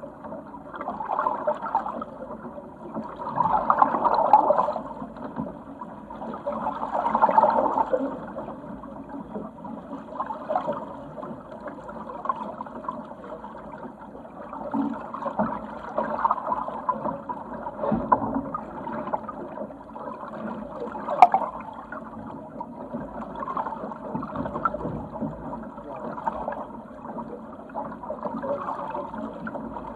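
Water rushing and splashing along the hull of a Sigma 8 metre sailing yacht under way, swelling in surges every few seconds as it meets the waves. A single sharp click about two-thirds of the way through.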